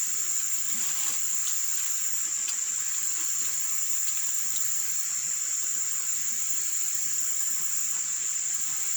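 Steady high-pitched insect chorus, one unbroken note with no pauses, with a few faint clicks.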